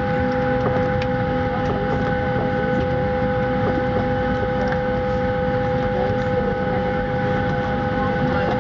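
Steady turbine whine heard inside a Boeing 737 cabin: two constant high tones over a low, even hum, with no change in pitch or level.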